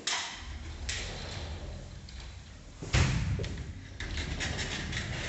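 Sliding wardrobe door rolled along its track by hand, a low rumble with a few knocks. About three seconds in it meets the end of the track with a loud thump, then rumbles along again.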